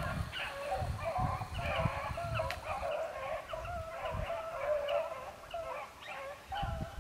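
Pack of beagles baying while running a cottontail rabbit, several dogs giving wavering cries that overlap without a break.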